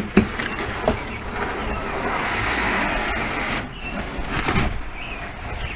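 A large cardboard shipping box being lifted off a packaged treadmill. There are a couple of sharp knocks near the start, then a long scraping slide of cardboard about two seconds in, and more knocking and rubbing near the end.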